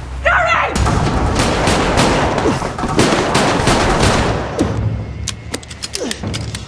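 Gunshots fired in a rapid run of sharp cracks, over a low steady music drone.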